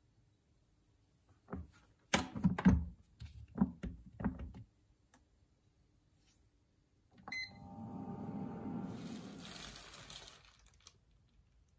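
Handling of a Panasonic IH rice cooker: a few knocks and clunks, then about seven seconds in a click with a short beep, followed by about three seconds of noisy hissing and scraping.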